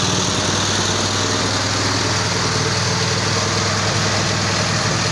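Small petrol engine fitted to a homemade car, idling steadily with an even, fast firing beat.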